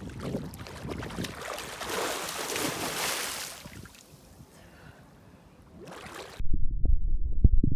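Lake water splashing and lapping around swimmers doing breaststroke at the surface, busiest in the first three seconds, with a splash near six seconds as a swimmer lifts her head. It then cuts abruptly to a muffled low rumble heard underwater, with a few soft knocks.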